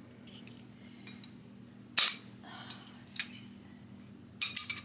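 Metal sockets and hand tools clinking and clattering: a sharp clatter about two seconds in, a lighter clink just after three seconds, and a quick run of clinks near the end.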